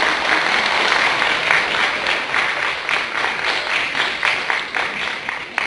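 Audience applauding, a steady mass of many hands clapping that eases off a little near the end.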